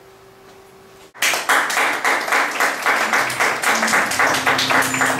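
Electronic sound-art soundtrack: a faint steady hum, then about a second in a sudden loud, dense patter of rapid clicks like heavy rain or hail, with low steady electronic tones coming in under it near the middle.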